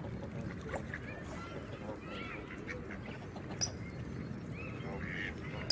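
Geese honking and calling repeatedly over the steady sound of running water.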